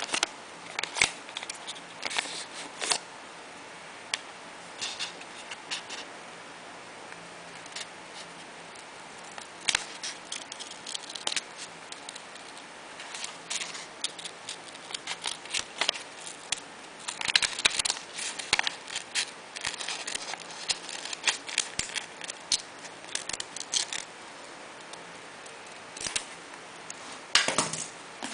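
Scissors snipping through paper, with the paper rustling and crinkling as it is handled, in short irregular bursts.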